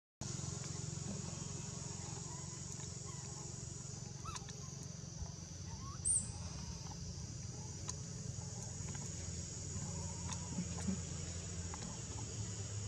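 Outdoor natural ambience: a steady high drone and a low hum, with a few faint short chirps and one brief sharp high squeak about six seconds in.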